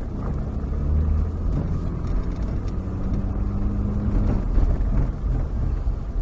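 Vehicle driving along a dirt bush track, heard from inside the cab: a steady low engine drone mixed with tyre and road rumble, its pitch shifting slightly as the speed changes.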